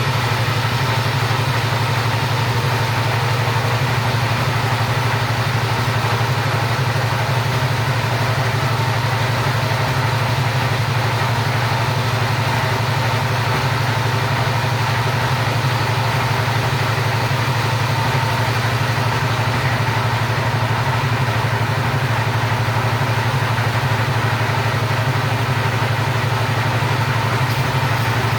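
Chainsaw engine running steadily without pause or change in pitch while sawing timber into rafters.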